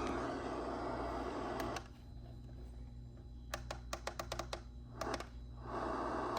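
Weather radio static hiss that cuts out abruptly about two seconds in. A rapid run of about a dozen sharp clicks follows, and the hiss comes back near the end.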